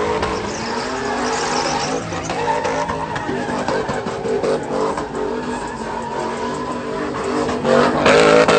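A car drifting with its engine revving up and down and its tyres screeching on the asphalt. It gets louder near the end.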